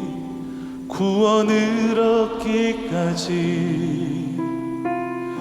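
Live worship band music: a singer holds wavering notes over sustained keyboard chords, and near the end the voice drops away, leaving only the steady keyboard chord.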